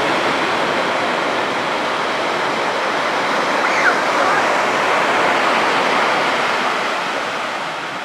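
Sea waves breaking and surf washing up the shore in a continuous rush of water, easing a little near the end.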